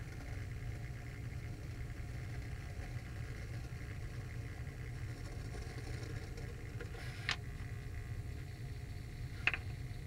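Bagless vacuum cleaner running with a steady low hum, strips of paper swirling in its clear dust bin. Two short sharp ticks stand out, about seven and nine and a half seconds in.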